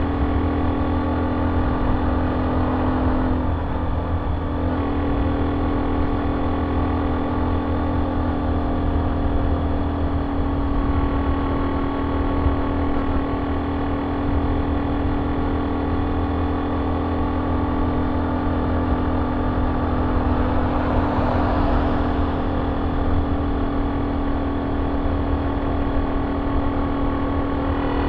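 Honda C70's small single-cylinder four-stroke engine running at a steady cruise through an aftermarket banana-shaped exhaust, a steady pitched exhaust note. The note breaks briefly about four seconds in, and a short rush of noise comes about twenty seconds in.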